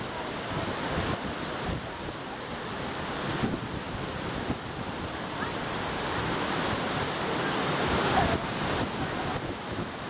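Steady rush of white water from the stream below Shiraito Falls, tumbling over rocks and running muddy after rain.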